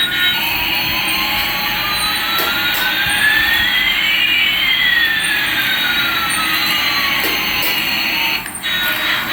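Jet engine sound effect: a steady whooshing hiss with two whistling tones, one rising and one falling, that cross about halfway through.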